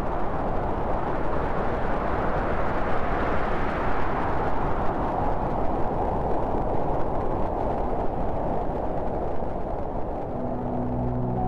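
A steady rushing noise, brighter and wider about a third of the way in and duller later on. Low musical tones come in near the end.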